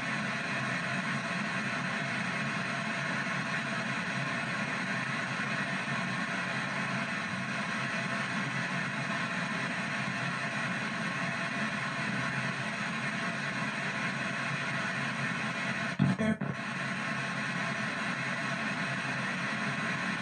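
P-SB7 spirit box sweeping backwards through the FM band, giving a steady hiss of radio static from its speaker. There is a brief louder blip about sixteen seconds in.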